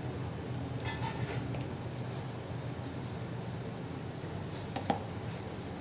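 Quiet kitchen background: a low steady hum, with a few faint light clicks and taps.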